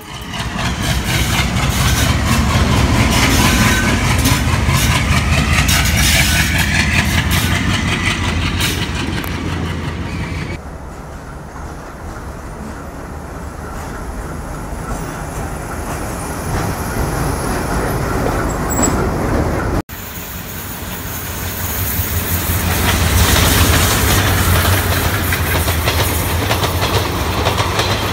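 Diesel-hauled trains passing: a diesel locomotive's engine rumbling and coach wheels clattering over rail joints, ending abruptly about ten seconds in. Then a WDM-class diesel locomotive's engine runs with a steady low hum. About twenty seconds in, another passing train's rumble and wheel noise build up.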